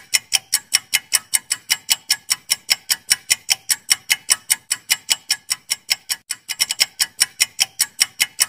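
Fast clock-like ticking of a countdown-timer sound effect, about six ticks a second. It falters briefly about six seconds in.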